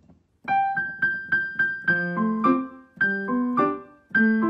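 Background piano music: a bright melody of quick struck notes, starting about half a second in, with short breaks near the three- and four-second marks.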